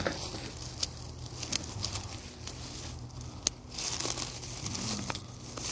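Rustling and crinkling with scattered sharp snaps: stinging nettle being picked by hand and stuffed into a bag.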